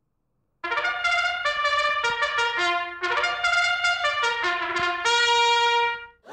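A short trumpet tune of quick, separate notes that ends on one long held note.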